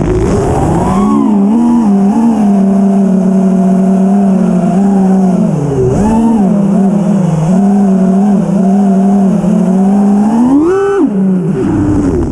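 A 5-inch FPV freestyle quadcopter's four iFlight Xing-E 2207 1800kv brushless motors on 6S, spinning 5-inch props, whining. The pitch wavers with throttle changes, dips about six seconds in, and rises sharply in a full-throttle punch near the end before dropping back. A low rushing noise is heard at the start and again near the end.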